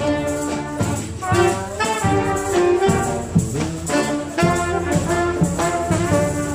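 Brass band music: a tune of held notes on trumpet- and trombone-like horns, changing about every half second.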